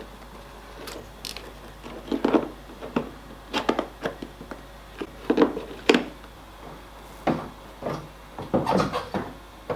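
Plastic car parts being handled and fitted: irregular rubbing, scraping and light knocks, about a dozen short bursts a second or so apart.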